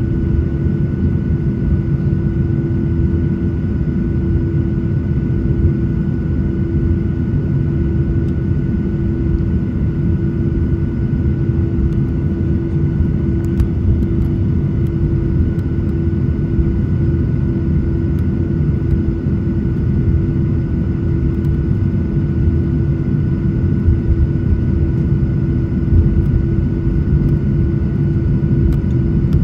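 Jet airliner's engines heard from inside the cabin while the plane taxis: a steady low rumble with a constant hum, unchanging throughout.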